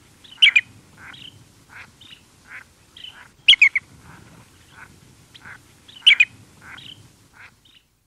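Lesser yellowlegs giving loud contact calls close by: three bursts of two or three quick notes, about three seconds apart. Behind them are fainter, regularly repeated calls of other birds further off, and a light wind.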